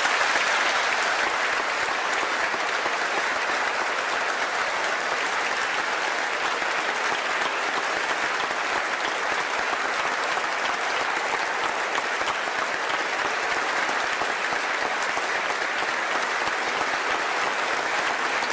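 Sustained applause from a large audience, beginning suddenly and holding steady in a dense, even wash of clapping.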